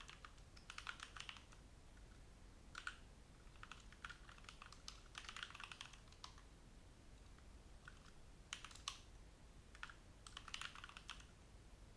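Faint typing on a computer keyboard: several short flurries of quick keystrokes with pauses between them.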